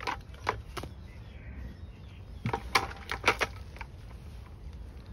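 Short sharp scrapes and knocks of a digging tool working soil: three in the first second, then a louder cluster of about five a little past the middle.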